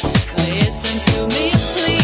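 Dance music with a steady kick-drum beat, about two beats a second, and a melody over it.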